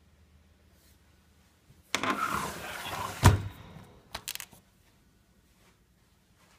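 Handling noise close to the microphone: rustling and scraping for about a second and a half, then a sharp knock, then a few light clicks.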